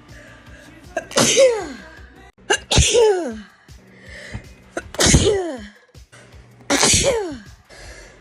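A person's sneeze attack: four loud sneezes in quick succession, about two seconds apart. Each is a sharp burst whose voiced 'choo' drops steeply in pitch.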